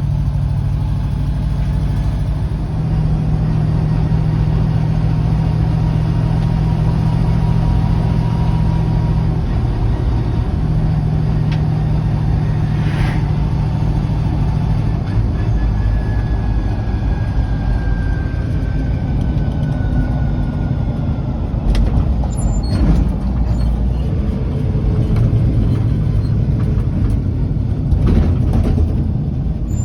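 1968 K20 pickup truck driving, its engine droning steadily over road noise, the pitch of the drone stepping a few times. There are a few sharp knocks and rattles in the second half.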